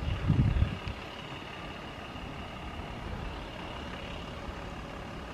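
Steady outdoor background of distant vehicle noise, with a short loud low buffeting on the microphone about half a second in.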